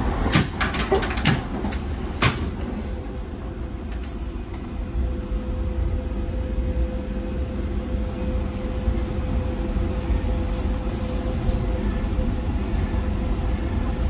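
Docklands Light Railway train running on the track, heard from inside the car: a few sharp clunks in the first couple of seconds, then a steady low rumble with a steady hum.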